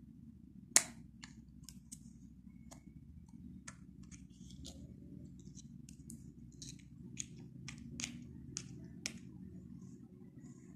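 Sharp clicks and taps of plastic ink-bottle caps and pens being handled on a desk as the bottles are opened. One loud click comes about a second in and a quicker run of clicks comes later, over a faint steady low hum.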